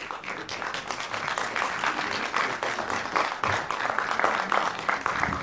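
Audience clapping in a concert hall: dense applause of many hands that begins as the announcement ends and thins out near the end.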